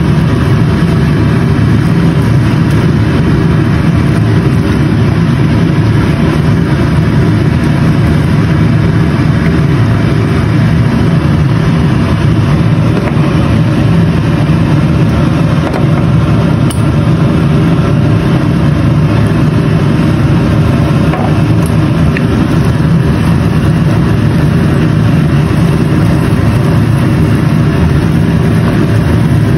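A loud, steady low hum of a running motor.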